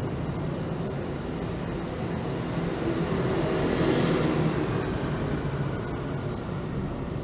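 Street traffic ambience with a steady low rumble; a motor scooter passes, growing louder to a peak about four seconds in and then fading away.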